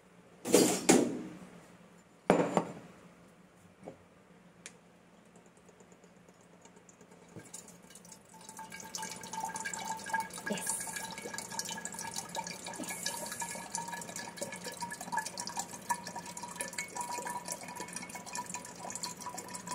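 Coconut water dripping and trickling from an upturned, pierced coconut into a glass bottle, setting in about eight seconds in and running on steadily. A few sharp knocks come in the first few seconds.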